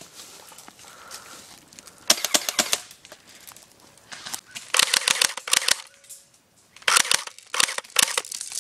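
Airsoft rifle firing strings of rapid, sharp snapping shots in three clusters: one about two seconds in, a longer one from about four to six seconds in, and another around seven to eight seconds.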